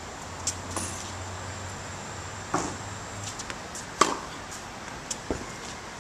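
Tennis racket striking a tennis ball and the ball bouncing on a hard court during groundstroke practice: a few sharp pops, the loudest about four seconds in.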